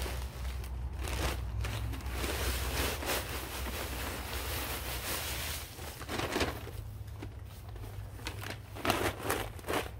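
Dry autumn leaves pouring out of a paper leaf bag onto a pile: a continuous rustling rush for about the first five and a half seconds, then scattered crinkles and crackles as the paper bag is shaken and handled.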